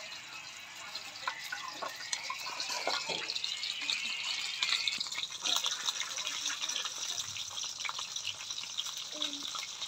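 Battered chicken feet frying in hot oil in a wok, sizzling with many small crackles. The sizzle gets louder and fuller about five seconds in.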